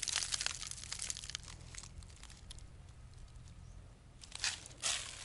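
Footsteps crunching on a stony, red-clay dirt path: a run of gritty crunches in the first two seconds, a quieter stretch, then two more steps near the end.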